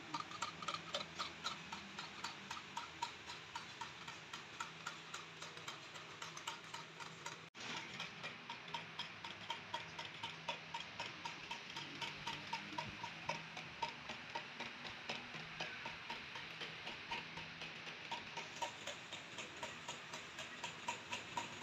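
Steady rhythmic ticking, about three ticks a second, keeping an even pace throughout.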